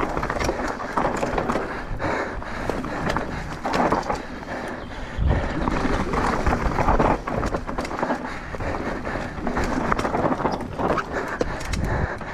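Commencal Meta V5 mountain bike descending a dirt forest trail at speed: knobby tyres crunching over loose dirt, leaves and stones, with the bike rattling and many sharp ticks of gravel strikes. A heavier thump about five seconds in.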